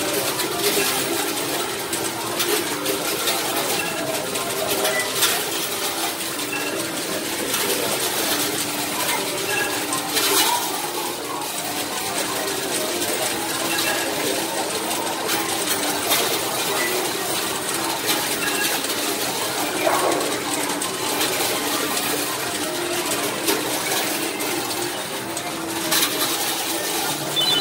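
Coin pusher arcade machine: tokens clinking and dropping, with a sharper clink now and then, over a steady din of machine tones.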